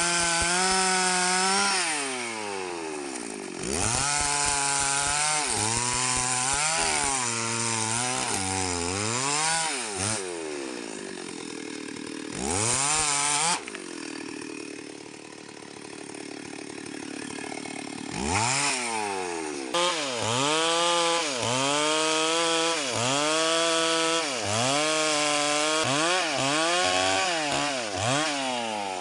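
STIHL MS 381 two-stroke chainsaw sawing mahogany, its engine speed rising and falling about once a second as the chain bites into the wood. For a few seconds in the middle it drops back to a lower run, with one short burst of full revs.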